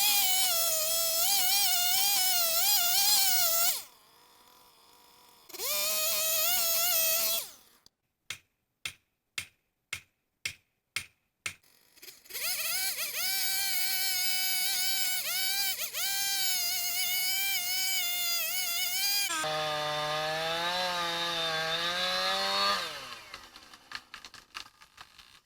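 Two-stroke chainsaw running at high revs and cutting cedar in several separate bursts, its high whine dipping briefly as the chain loads in the wood. In the middle there is a row of about eight sharp clicks, and near the end the saw runs at a much lower, wavering pitch before it dies away.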